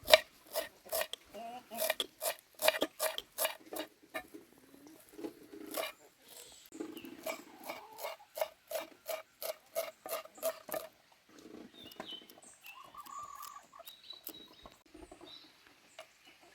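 Knife chopping on a cutting board in quick, evenly spaced strokes, in two runs about three to four strokes a second, then stopping about 11 seconds in, leaving softer scattered sounds.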